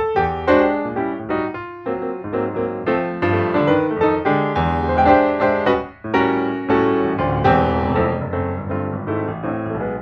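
Background piano music: a quick run of notes over low bass notes, briefly dipping about six seconds in.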